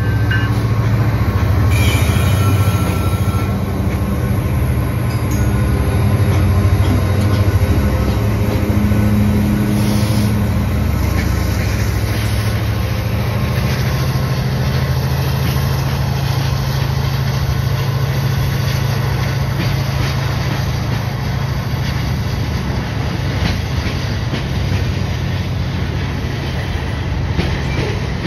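Two CN EMD SD75I diesel locomotives pulling a grain train past: their engines make a steady, loud low drone, and covered hopper cars follow, rolling by with the rumble of steel wheels on the rails.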